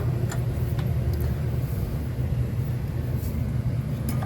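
Steady low rumble with a few faint, light clicks scattered through it.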